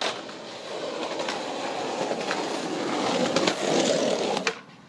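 Skateboard wheels rolling over concrete pavement, a steady rolling noise that grows louder as the board comes close. A few light clicks sound along the way, and the rolling cuts off shortly before the end.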